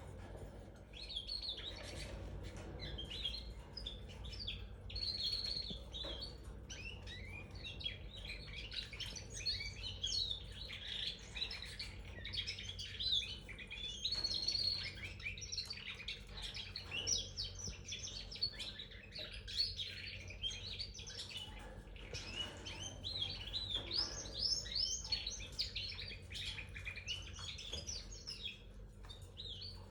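Red factor canary singing: a long, unbroken run of rapid high chirps, trills and warbling glides, with a faint steady low hum beneath.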